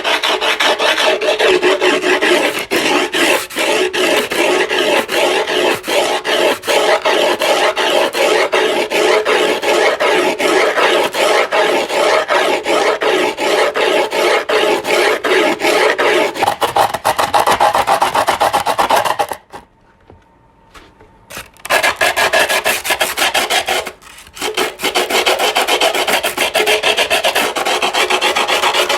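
A file rasping over skateboard griptape in rapid back-and-forth strokes, the gritty scrape of scoring the tape along the deck's edge. The filing stops for about two seconds a little past the middle, then resumes with one more brief break.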